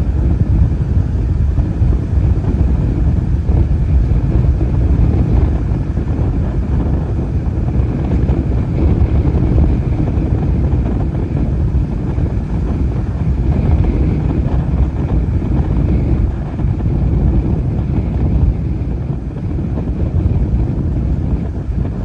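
Strong, gusty wind of tropical-storm force buffeting the microphone in a heavy low rumble that swells and eases with the gusts.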